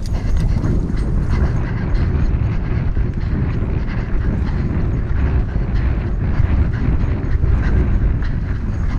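A runner and dogs running on a trail: footfalls over a heavy, steady low rumble of wind and movement on the microphone.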